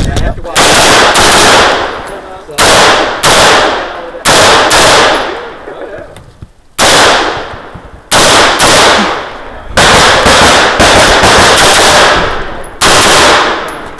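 DPMS/JP Precision AR-15-style rifle firing semi-automatic shots in quick groups of two to four, with short pauses between groups. Each shot is followed by a brief ringing echo.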